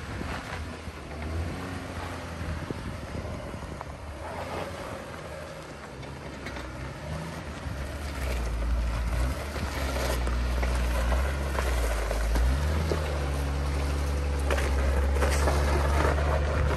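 A vehicle engine running with wind buffeting the microphone; the low engine hum gets louder and its pitch shifts about halfway through.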